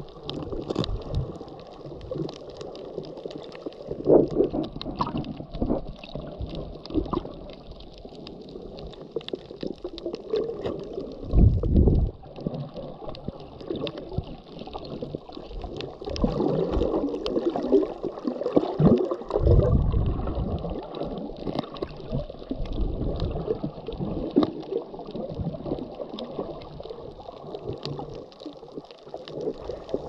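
Water movement heard underwater through an action camera: a steady muffled sloshing and gurgling with many small clicks. There are louder low whooshes of water about 11 and 19 seconds in.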